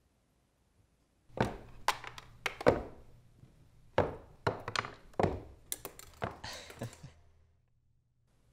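Footsteps in swim fins coming down wooden stairs: a run of about a dozen uneven thuds and slaps over some six seconds, then quiet.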